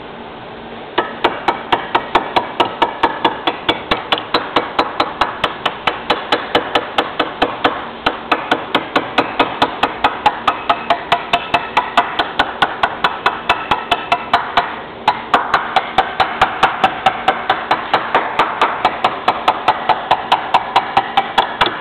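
Hammer tapping rapidly and evenly, about four strikes a second, each strike ringing briefly, with one short pause partway through.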